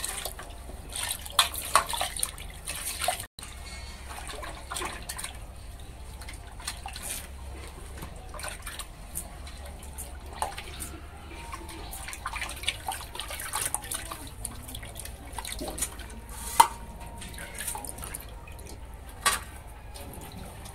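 Raw chicken pieces being washed by hand in a steel pot of water: splashing and dripping, with a few sharp clinks against the steel near the end.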